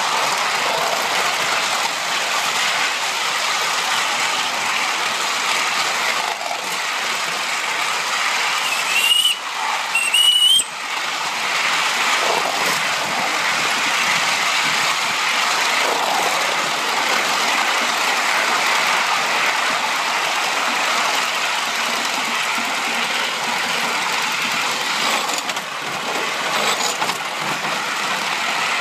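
3½-inch gauge live-steam model BR Standard Class 9F locomotive running along the track: a steady rushing noise of the working engine and wheels on the rails. About a third of the way in come two short high tones a second apart.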